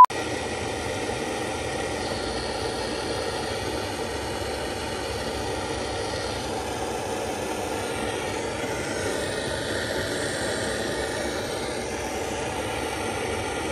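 Steady engine and road noise of a vehicle on the move, starting and stopping abruptly.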